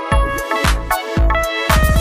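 Background music with a steady electronic beat, a bass drum hitting about twice a second, breaking into a quick rapid-fire roll near the end.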